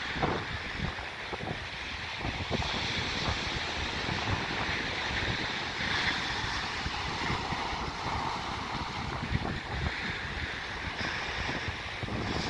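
Small ocean waves breaking and washing up a sandy beach in a steady rush, with wind buffeting the microphone.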